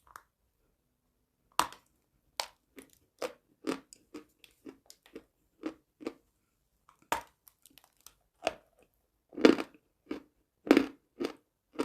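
Close-miked crunching of chalk being bitten and chewed: sharp, separate crunches at an uneven pace after a brief quiet start, with a couple of louder bites near the end.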